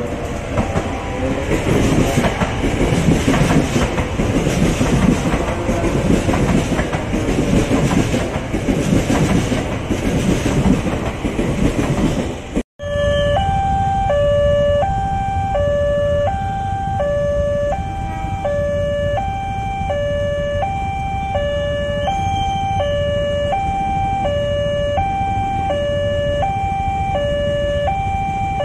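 An electric commuter train, an ex-Tokyo Metro 6000 series unit of the KRL Commuter Line, running past at speed with loud rumble and wheel noise. About halfway through, the sound changes to a level crossing warning alarm, an electronic two-tone chime alternating steadily between a higher and a lower note, over the low rumble of a train crossing.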